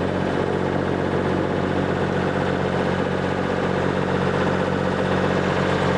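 A motorboat's engine running steadily at an even pitch.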